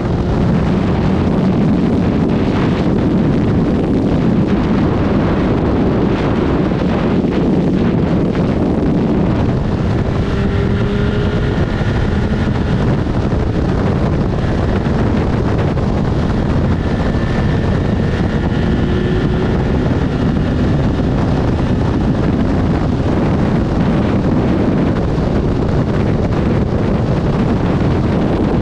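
Suzuki GSX1300R Hayabusa (first generation, inline-four) at motorway speed: steady wind rush over the microphone with the engine and road noise running underneath. A faint whine comes and goes around the middle.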